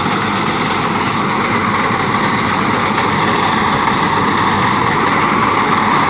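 Massey Ferguson 385 tractor's diesel engine running steadily under load, driving a front-mounted wheat reaper as it cuts standing wheat.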